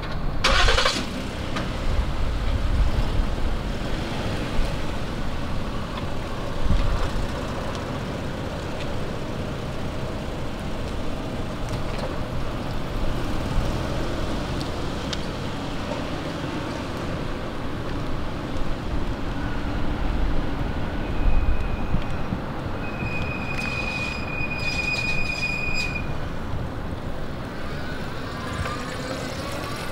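Elevated 7 subway train running with a steady rumble. A sharp screech comes about half a second in, and a high, steady wheel squeal lasts a few seconds near the end.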